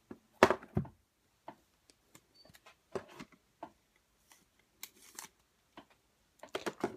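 A cardboard trading-card hobby box set down on a table with a few heavy knocks about half a second in, followed by light clicks and rustles as it is handled, busiest near the end.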